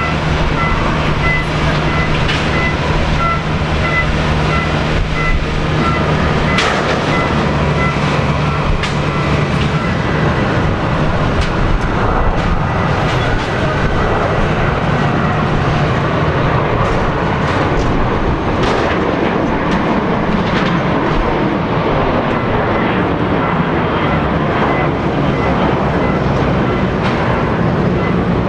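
Boeing 737-700 jet engines at takeoff thrust: a steady, dense jet noise as the airliner runs down the runway, lifts off and climbs away. A low steady hum is heard through the first part of the takeoff run.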